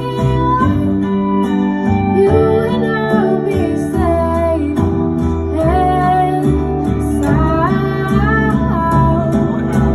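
A young woman singing a slow pop song into a handheld microphone, amplified through PA speakers, over a plucked guitar accompaniment.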